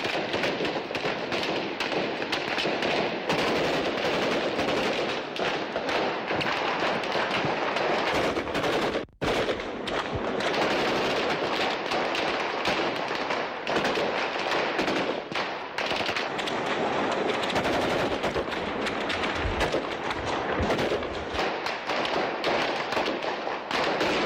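Sustained heavy automatic gunfire: dense, overlapping bursts and single shots with no pause, except a momentary break about nine seconds in.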